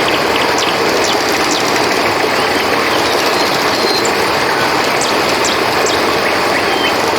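Steady rushing of a river, with short high chirps and whistles scattered over it.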